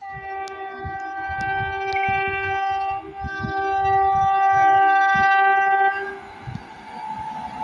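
Horn of an approaching electric locomotive sounding two long blasts, a chord of several steady tones, with a short break about three seconds in. The horn stops about six seconds in, and the rumble of the oncoming train then builds.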